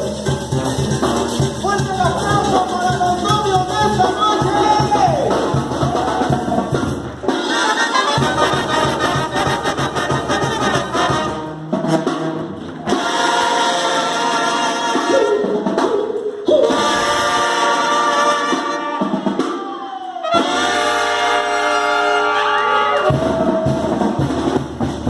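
Upbeat Latin party music with brass horns, drums and singing, broken by a few short pauses.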